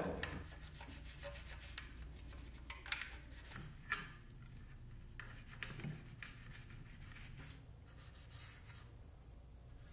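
Toothbrush bristles scrubbing the inside of a Romanian PSL rifle's stamped steel receiver: a faint rubbing in repeated strokes, with a few light clicks of the brush against the metal.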